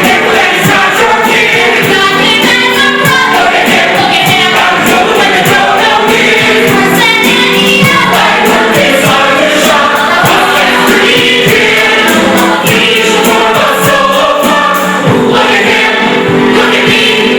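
A chorus of voices singing a stage-musical number with instrumental accompaniment.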